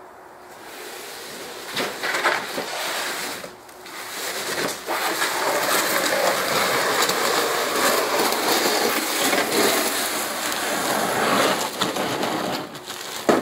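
Cardboard and plastic-wrap packaging of a large boxed car bumper rustling and crinkling as it is handled and carried, with a few knocks along the way.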